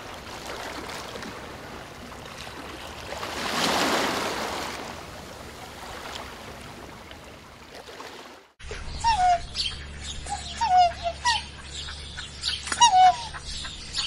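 Domestic geese bathing in shallow water, a steady splashing that swells about four seconds in. After a sudden cut, a flock of birds gives short, downward-sliding honking calls several times.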